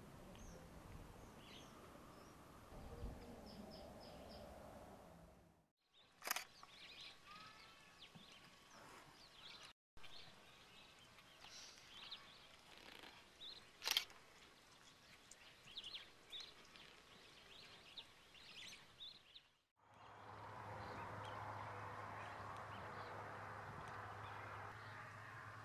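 Quiet outdoor ambience with faint bird chirps and a couple of sharp clicks; in the last few seconds a steady low hum and hiss take over.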